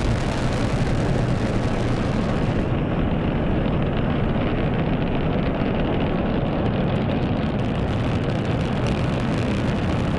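Delta IV Heavy rocket's engines at liftoff and during the climb: a loud, steady, deep rumble. Its upper range dulls for a few seconds in the middle.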